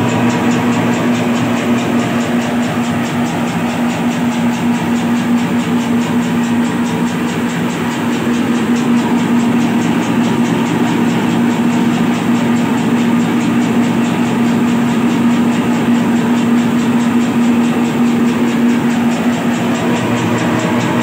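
Bakso meatball-forming machine running steadily on its 650-watt electric motor: a constant hum with a busy mechanical rattle.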